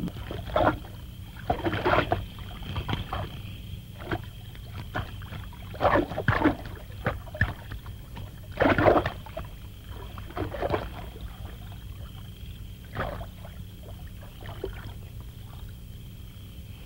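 Water splashing in irregular bursts, over a steady low rumble.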